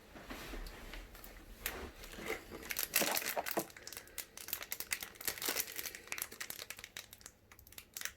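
Thin plastic packaging crinkling and rustling as it is handled, in irregular small crackles and clicks.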